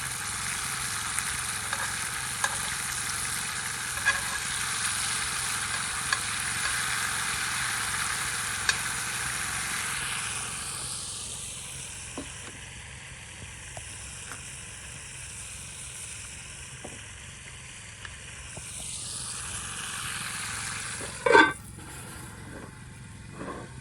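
Fajitas sizzling in a pan over a campfire, with small scattered clicks. The sizzle drops away about ten seconds in, comes back briefly, and a sharp knock, the loudest sound, comes near the end.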